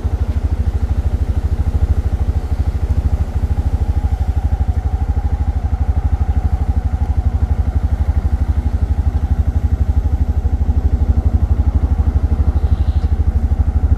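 Auto-rickshaw engine running steadily under way, heard from inside the moving three-wheeler as a rapid, even pulsing.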